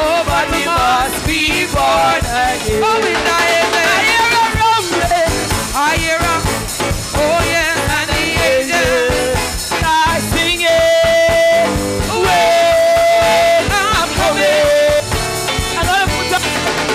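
Upbeat church chorus music from a live band, with a steady beat and a wavering melody line that holds long notes in places.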